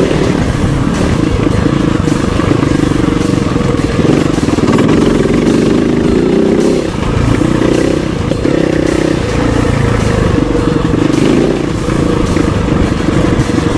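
KOVE 450 Rally's single-cylinder engine running as the motorcycle is ridden off-road, its note shifting with the throttle, with brief drops in level about seven and twelve seconds in.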